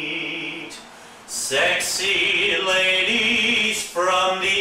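A man singing a show tune without accompaniment, holding notes with vibrato, with a short break just over a second in.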